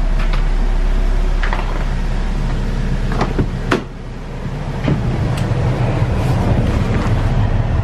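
A car running, heard from inside the cabin as a steady low rumble. Several sharp clicks and knocks sound over it.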